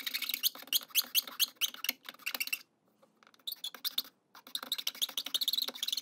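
A steel hand file rasping across end grain in quick back-and-forth strokes, about five a second, with a pause of about a second in the middle. It is cleaning up the bandsaw starter cuts for the crenellations at the top of a turned wooden chess rook.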